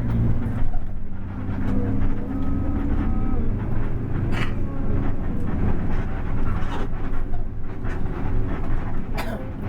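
Bus engine and road noise, a steady low rumble, with two brief bursts of hissing noise about four seconds in and near the end.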